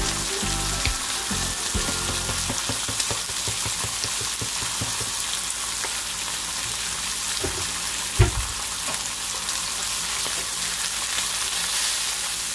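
Bacon strips and a sausage sizzling steadily in a frying pan, with a single sharp knock about eight seconds in.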